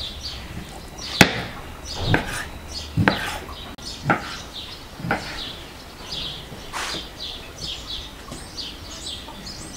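Kitchen knife cutting raw beef on a wooden cutting board, knocking sharply on the board about once a second. Small birds chirp steadily in the background.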